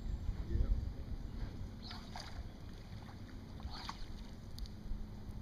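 Low wind rumble on the microphone over open-air river ambience, heaviest in the first second, with two short high chirps about two and four seconds in.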